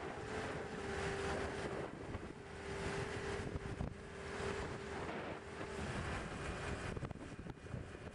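Wind buffeting the microphone in uneven gusts, over a steady hum that stops about six seconds in.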